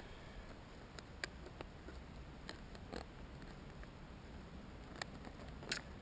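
Thin plastic food containers and their lids being handled and set down: a scattering of light clicks and crackles, the loudest near the end, over faint low background noise.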